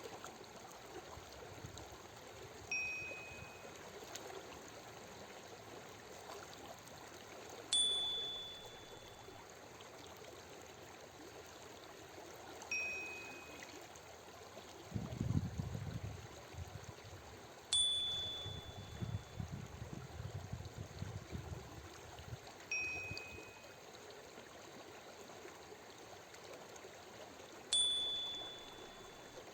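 Steady running water with a short soft chime every five seconds, alternating between a lower and a higher note. The chimes pace breathing for cardiac coherence, cueing in-breath and out-breath at six breaths a minute. Midway there is a deeper rumble in the water for several seconds.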